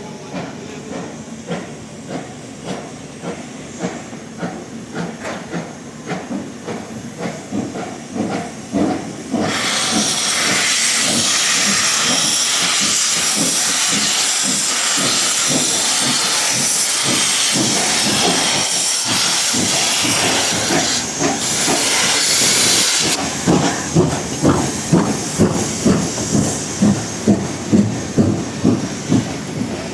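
A P36 steam locomotive train departing: rhythmic beats at first, then about ten seconds in a loud, steady hiss of steam that lasts some thirteen seconds and cuts off. After that comes a regular rhythmic clatter of about two beats a second from the moving train.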